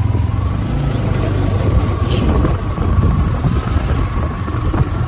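Motorbike engine running steadily while riding, a continuous low hum with a faint steady whine above it, under road and wind noise.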